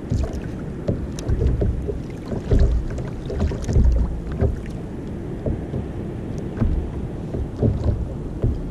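Wind gusting on the microphone, with water lapping against a kayak's hull and scattered light ticks.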